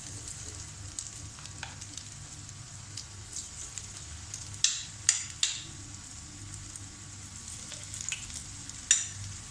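Noodle pakoras, gram-flour batter with Maggi noodles, sizzling as they deep-fry in a pan of hot oil, a steady crackling hiss. A few sharp clicks cut through it, three close together about halfway through and one near the end.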